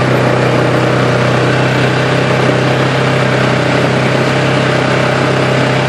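Polaris quad bike engine running at a steady pace as the bike rides along a gravel farm track, a constant drone with no change in revs.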